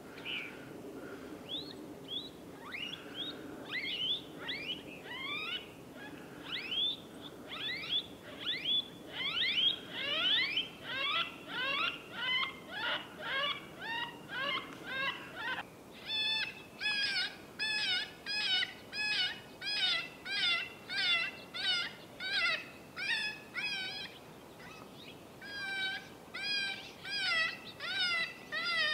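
FOXPRO electronic predator caller playing a prey distress call: high cries falling in pitch, repeated about two a second and growing louder over the first ten seconds. About halfway through, the call switches to a different repeating cry at the same pace.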